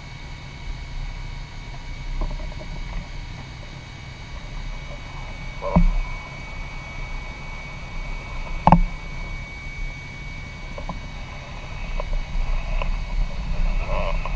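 Low steady rumble of stopped motorcycles and passing traffic, with a faint steady whine, and two sharp knocks about six and nine seconds in.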